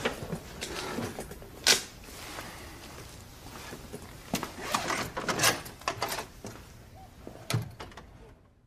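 Several sharp knocks and clicks of objects being handled: a loud one a couple of seconds in, a cluster around the middle and one more near the end, over quiet room tone.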